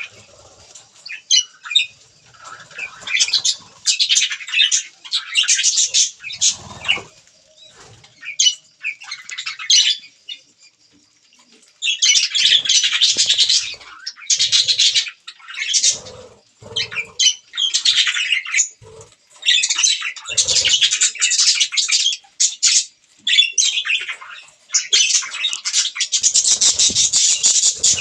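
Pet budgerigars chirping and chattering in fast, warbling bursts, with a quiet pause about ten seconds in and a few soft low thuds among the calls.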